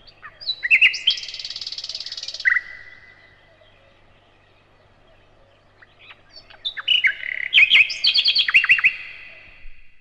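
Common nightingale singing: a phrase with a fast rattle in it, a pause of about three seconds, then a second phrase of quick repeated notes.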